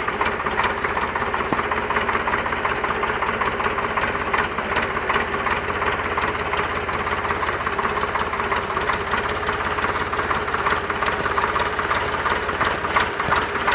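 Swaraj tractor's diesel engine running steadily with an even, fast chug.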